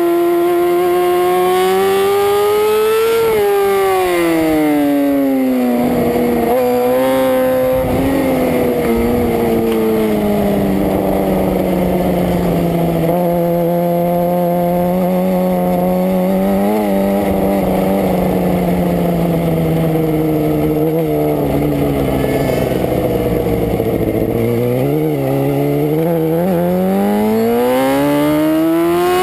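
Superbike engine heard from the onboard camera: revving high, then dropping through the gears as it slows, running at low, fairly steady revs for about a dozen seconds while the bike is off the track on the grass, and revving up again near the end as it pulls back onto the asphalt.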